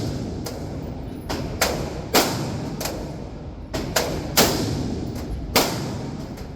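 Gunshots at a shooting range: about nine irregularly spaced shots, some louder and some fainter, each followed by a lingering echo.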